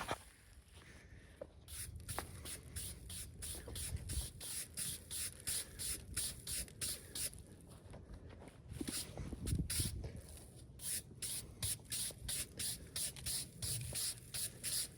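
Rapid, even hand strokes of something rubbing or scraping, about two to three strokes a second, pausing briefly about two thirds of the way through with a dull low rumble, then resuming.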